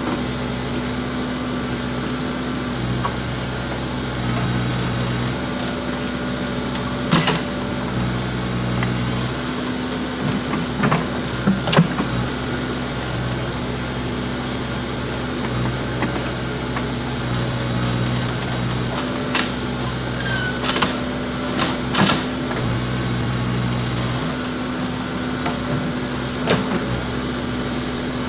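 Backhoe loader's diesel engine running under work, its speed rising and falling every few seconds, with a few sharp knocks from the machine at work.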